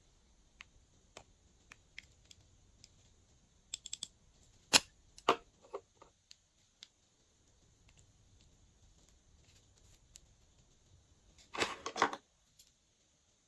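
Glossy slime being handled and mixed: scattered small sticky clicks and pops, one sharp loud click about five seconds in, and a short crackling run of clicks near the end.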